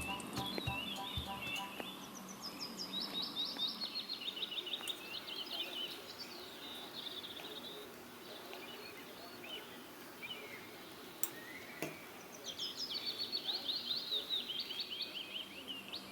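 A small songbird singing: two long, rapid trills of repeated high chirps, with scattered single chirps between them.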